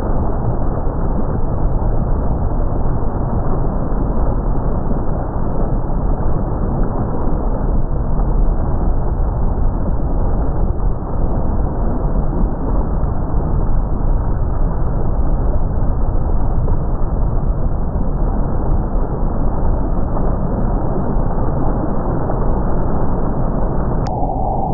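Rushing white water pouring over rocks in a small river cascade: a steady, deep rumble. A click near the end.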